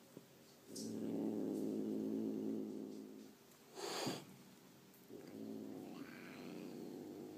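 An irritated cat growling low and steadily for a couple of seconds, hissing sharply about four seconds in with its teeth bared, then growling again: a warning to another cat.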